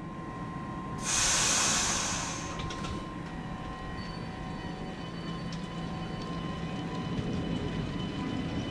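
Stadler RABe 501 Giruno electric train pulling slowly away. A loud burst of compressed-air hiss comes about a second in, then a steady rumble with a faint whine.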